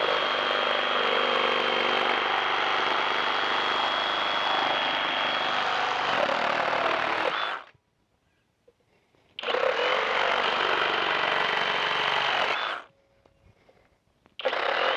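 FLEX 24V cordless reciprocating saw with a bimetal demolition blade, in orbital mode, cutting through a wooden beam. It runs steadily for about seven and a half seconds, stops, runs again for about three seconds, stops, and starts up once more near the end.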